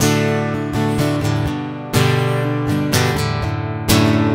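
Acoustic guitar strummed: a chord struck hard about every two seconds and left ringing, with lighter strums in between.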